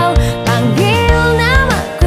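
Pop song with a female lead vocal sung in Indonesian over backing instruments and a steady beat.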